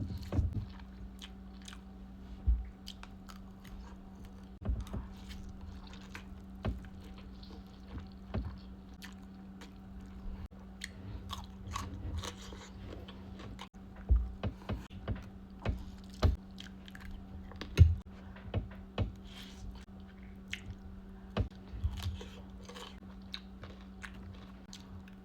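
A person eating close to the microphone: irregular bites, crunches and chewing sounds, over a steady low hum.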